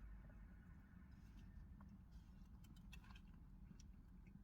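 Near silence: faint room tone with a low hum and a few soft, scattered clicks.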